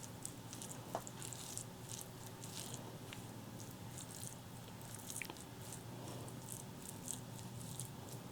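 Close-miked chewing: a steady run of soft, wet mouth clicks, with a few sharper clicks about a second in, at about three seconds and at about five seconds.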